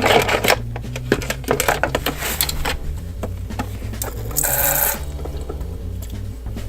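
Small plastic toy dishes and utensils clicking and clattering as they are handled, with a short burst of running water from the toy sink about four and a half seconds in.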